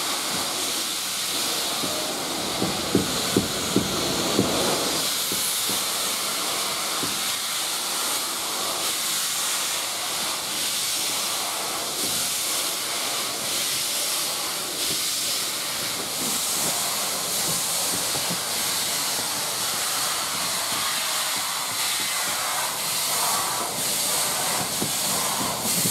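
Steam hissing steadily from SR 34028 Eddystone, a rebuilt Bulleid West Country class steam locomotive, as the train moves slowly, with a few knocks about three to four seconds in.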